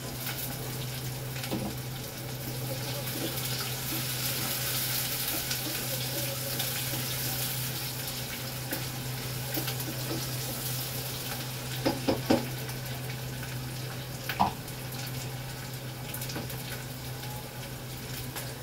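Onions and green chillies sizzling in hot oil in a pot over a gas flame, a steady hiss over a low hum. A wooden spoon stirs them, knocking against the pot three times in quick succession about twelve seconds in and once more, with a short ring, a couple of seconds later.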